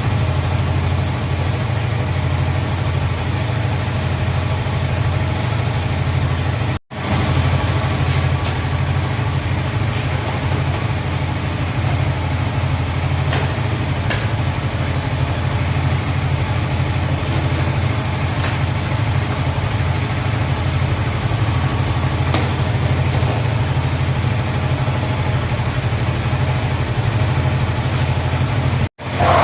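Yamaha R15 motorcycle's single-cylinder engine idling steadily, with a low, even drone. The sound breaks off for an instant about seven seconds in and again near the end.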